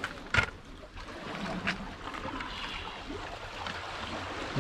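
Steady wash of water at the shoreline, with a sharp click about half a second in and a fainter one a little over a second later.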